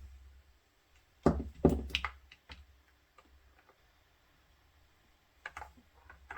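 A few sharp clicks and knocks of small hard parts being handled: a cluster of three or four about a second in, then a quieter stretch, then more clicks near the end.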